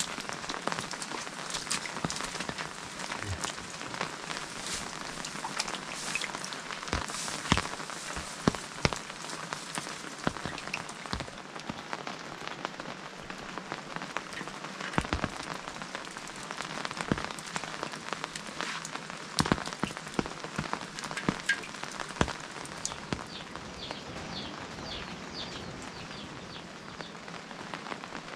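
Steady rain falling, with many sharp drips and drops striking nearby surfaces. Near the end there is a short run of high chirps.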